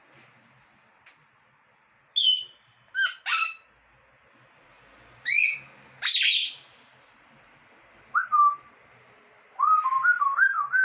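Pet parrot calling: six short, loud whistled calls spread out with pauses, then a quick run of wavering whistled notes near the end.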